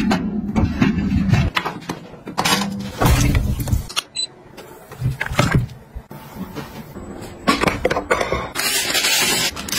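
Handling noise of kitchen-appliance parts, plastic, metal and glass, being picked up, set down and fitted together: a run of clicks, knocks and scrapes. The sound changes abruptly every few seconds.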